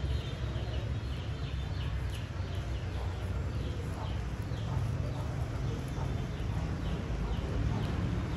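Birds chirping in a run of short, high, falling chirps, over a steady low rumble.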